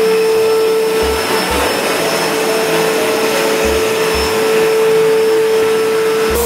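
Wet/dry vacuum cleaner motor running with a steady whine over its rushing airflow.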